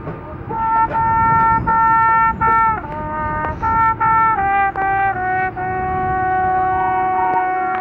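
Marching band brass section playing a phrase of held, accented chords with short breaks between them, then settling into one long sustained chord. Wind rumbles on the microphone underneath.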